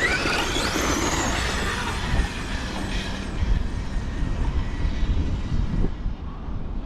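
Kraton RC truck's brushless electric motor whining sharply up in pitch as the truck accelerates hard, then a steady rush of tyres and drivetrain that gradually fades as it runs away.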